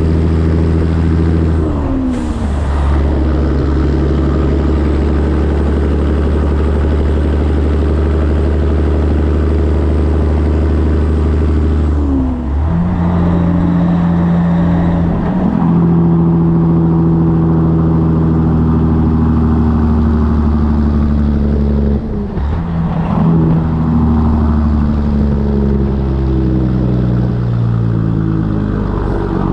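Diesel engine of a 1984 Peterbilt 362 cab-over semi truck pulling under way. The engine note drops four times as it shifts up through the gears and holds steady between the shifts. There is a short hiss about two seconds in.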